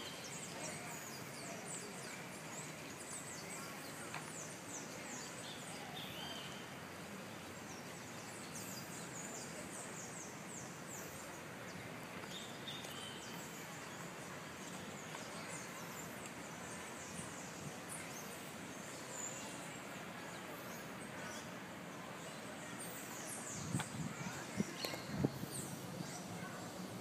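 Steady outdoor background noise with small birds chirping often in quick, high notes. A few low bumps come near the end.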